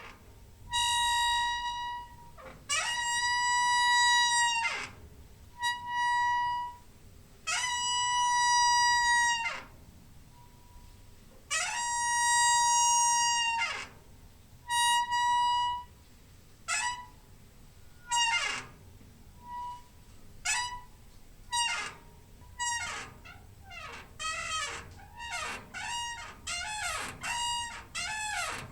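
Door hinge squeaking, a string of separate creaks. Each holds one high pitch with overtones and bends up or down at its start and end. The first several are drawn out to about two seconds; in the second half the squeaks are short and come faster and faster.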